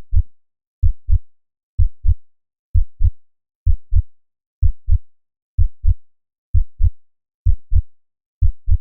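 Heartbeat sound effect: deep, evenly paced double thumps (lub-dub), a little faster than one beat a second, with the last beat near the end.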